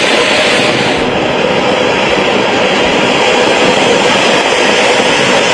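Ground fountain fireworks (flower pots) spraying sparks, a loud, steady hissing rush.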